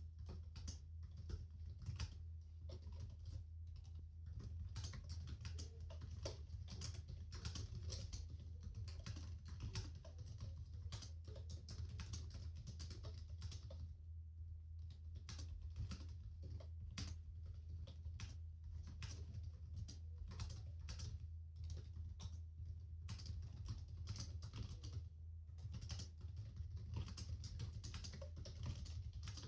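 Typing on a computer keyboard: a fast, irregular run of key clicks with a few short pauses, over a steady low hum.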